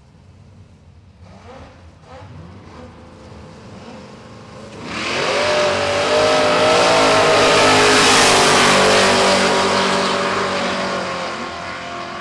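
Two drag cars' V8s blipping on the start line, then launching together at full throttle about five seconds in, revving up hard and fading as they run away down the strip. One is the Oztrack VX Commodore's 408 cubic-inch V8 through a very loud race exhaust, running on seven cylinders because of a clogged injector.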